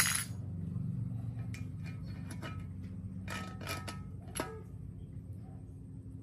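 Light metal clicks and clinks of hand tools and a long steel bolt being handled on a minibike's front fork, a quick cluster of them a little past halfway, over a steady low hum.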